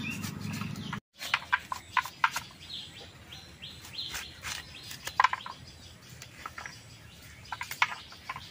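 Birds chirping in the background, with scattered light clicks and taps from a knife cutting and handling pomelo segments over steel bowls.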